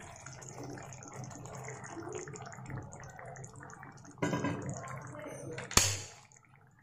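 Hot water being poured from a cup into a kadhai of simmering brown chana gravy, liquid splashing and trickling into the pan. It grows louder about four seconds in, a single sharp clink, the loudest sound, comes near six seconds, and then it falls quiet.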